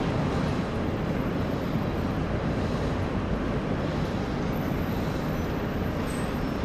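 Steady city street noise: a constant low rumble of traffic with no distinct events standing out.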